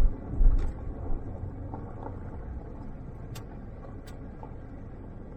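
Vehicle driving slowly along a dirt road: a steady low engine and road rumble with some wind on the microphone. There is a brief louder thump about half a second in and a couple of faint clicks later.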